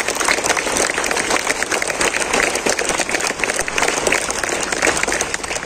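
A crowd of schoolchildren clapping hands in steady applause, welcoming a guest, stopping at the very end.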